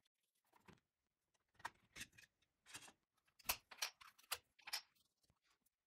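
Faint scattered clicks and light plastic knocks as a DeWalt 12V NiMH battery pack is taken apart: screws, the hard plastic case parts and the cell stack being handled. About seven short ticks, the sharpest about three and a half seconds in.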